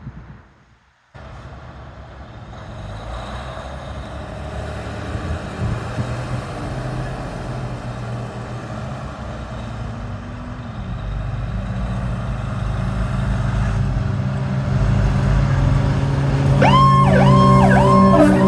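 Fire truck (aerial tower) approaching, its engine rumble growing steadily louder. Near the end its electronic siren starts, rising and falling quickly over and over, and a steady low air-horn blast joins it.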